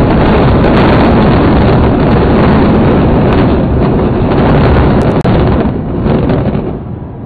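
Two concrete high-rise towers collapsing in an explosive demolition: a loud, continuous rumble of the falling buildings, with a brief dropout about five seconds in, easing off near the end.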